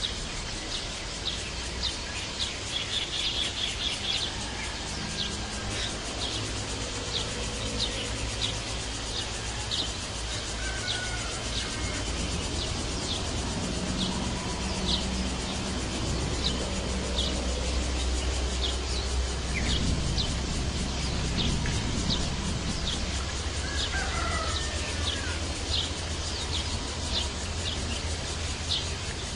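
Birds calling outdoors: a steady series of short, sharp, high chips repeated about once a second, with a few other gliding calls in between. A low rumble runs underneath, stronger in the second half.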